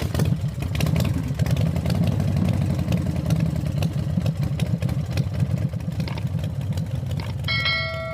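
An engine running steadily with a fast, even pulsing rumble that fades near the end, as a bright chime rings out over it.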